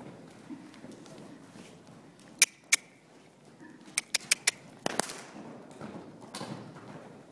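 Soft, muffled hoofbeats of a Friesian horse moving loose on sand arena footing. Over them come a series of sharp clicks: two a moment apart about two and a half seconds in, a quick run of four around four seconds, then a louder crack about five seconds in.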